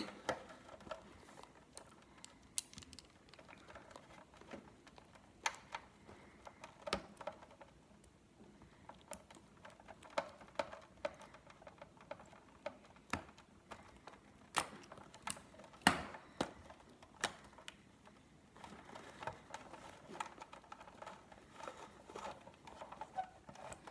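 Irregular small clicks and taps of pliers against the plastic housing and parts of a Big Mouth Billy Bass toy while working its stuck motor loose.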